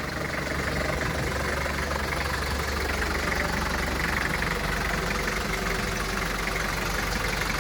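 1992 Daihatsu Taft GT F70's diesel engine running steadily: a low drone with an even, fine clatter.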